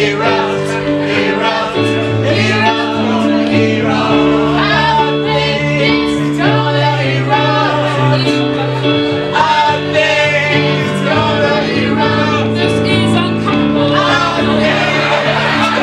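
Live improvised song: an electric keyboard plays sustained chords that change every second or two, while several voices sing over it.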